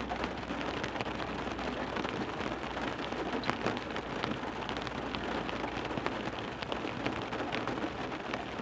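Heavy rain falling on a car window: a steady hiss of rain with many separate drop hits, a few louder ones standing out now and then.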